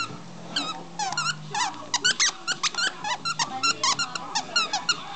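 Green plush bunny squeak toy squeaked over and over by a dog playing with it: quick short squeaks, several a second, each with a wavering, bending pitch.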